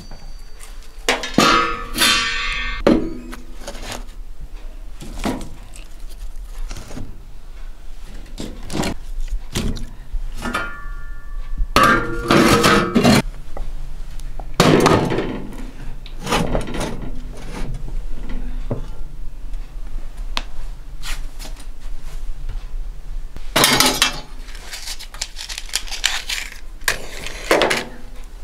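Clanks and knocks of a cast-iron wood stove being handled: metal lids and a pot knocked and set down, and split wood put into the firebox. The impacts are separate, with louder ones near the start, around the middle, and near the end, and some ring briefly like metal.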